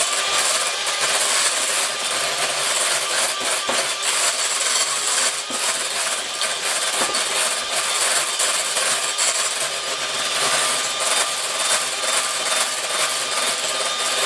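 Electric hand mixer running steadily, its beaters churning very thick, over-whipped cream in a glass bowl. This is the stage of butter-making where the cream is about to turn into a solid mass and force out the buttermilk.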